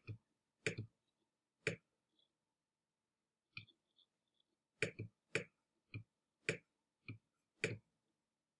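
Computer mouse clicking: single sharp clicks at uneven intervals, pausing for about two seconds in the middle, then coming in a quicker run of seven or eight clicks.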